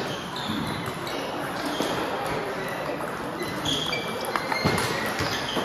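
Table tennis ball clicking off the rackets and the table during a rally, over background chatter.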